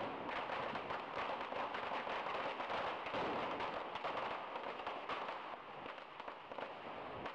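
Firecrackers going off in quick succession: a dense, continuous crackle of sharp bangs that thins a little near the end.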